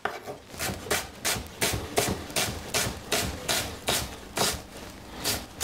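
Kitchen knife chopping a white onion on a wooden cutting board, a steady run of cuts at about three a second.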